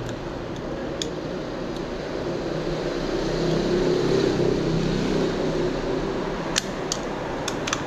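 A steady mechanical hum that swells to its loudest mid-way and then eases, followed by a few sharp metallic clicks near the end.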